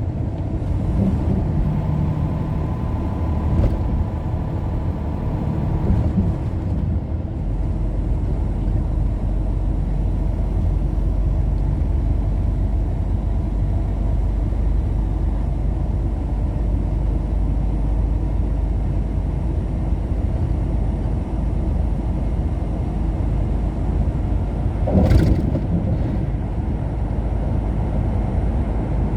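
A car driving along, with steady road and engine noise. There is one short knock near the end.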